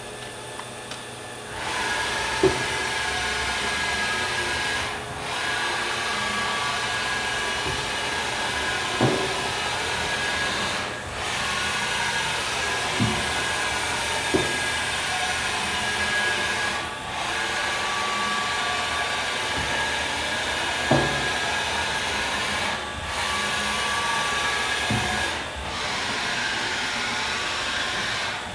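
STYLE BT-2000 CNC machining centre running, a steady whir with high whining tones. It starts about a second and a half in, drops briefly about every six seconds and carries a few short knocks.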